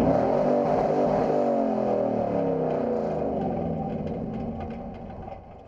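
Hobby stock race truck's engine heard from inside the cab, its pitch dropping steadily as the truck slows off the throttle after the checkered flag, then fading out near the end.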